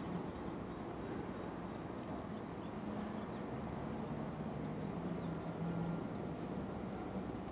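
Steady low hum inside a car's cabin while the car sits stopped with its engine idling, with a faint low drone that grows stronger midway.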